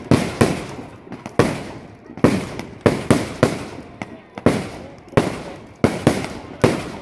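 Firework display: a steady volley of sharp bangs from bursting shells, about a dozen in the space of a few seconds, some coming in quick pairs, each trailing off in a short echo.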